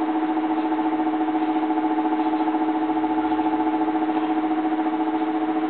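Hot-air rework station blowing steadily, a constant humming whine of its blower with a fast, even flutter, as it heats solder balls on a GPU during reballing.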